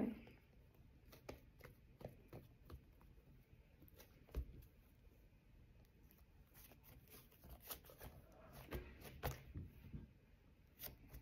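Faint scattered clicks of hands kneading and squeezing a lump of thick pink slime on a table, coming more often in the second half.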